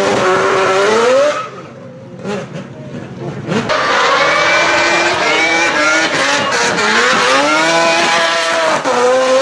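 Rotary-engined drift car revving hard as it drifts, its engine note climbing and falling again and again, with tyre noise from the spinning rear wheels. The sound drops away for about two seconds early on, then comes back loud.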